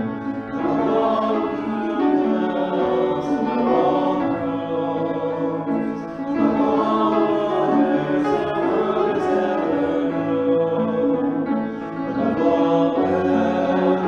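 A worship song sung by a woman and two men through microphones, accompanied on grand piano.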